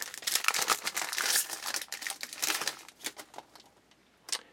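Foil wrapper of a trading-card pack crinkling and tearing as it is opened, for about three seconds, then a single sharp click near the end.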